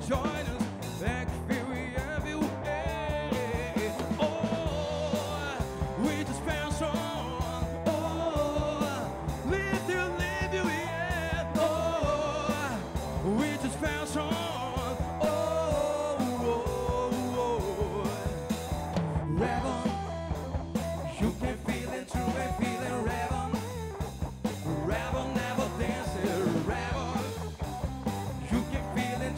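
A live rock band playing with a steady driving beat: Pearl drum kit, electric guitar and electric bass, with a male lead singer's voice over them.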